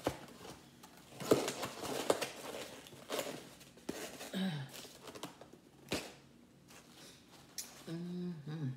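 A black plastic takeout clamshell and crumpled paper napkins being handled while a table is cleared: paper crinkling and rustling, broken by several sharp plastic clicks and knocks. A short hum comes about halfway through and again near the end.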